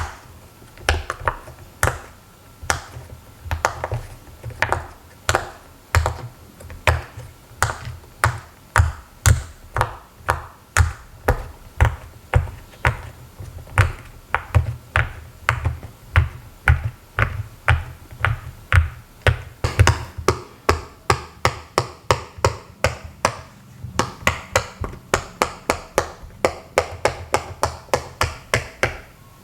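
Silicone pop-it fidget toy bubbles being pressed one after another, each giving a short sharp pop, about two a second, then faster from about two-thirds of the way through.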